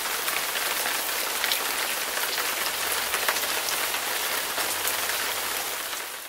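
Heavy rain falling steadily, a dense hiss scattered with small sharp drop hits, fading out near the end.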